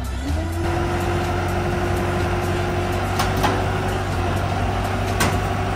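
A heavy vehicle's engine running steadily, with a held whine that rises slightly near the start and fades after about four seconds. A few sharp metallic knocks sound about three seconds in and again near the end.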